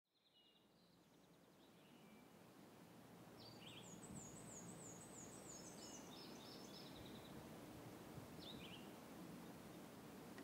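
Faint birdsong over a steady low hush, fading in over the first few seconds: scattered short chirps and a rapid trilled phrase of high notes near the middle.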